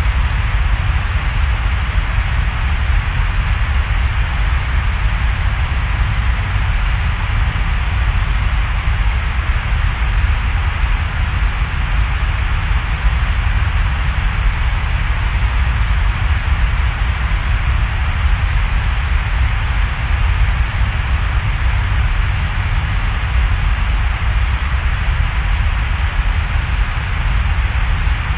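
Steady, unchanging noise: an even hiss with a strong deep rumble underneath, with no tune, beat or separate events.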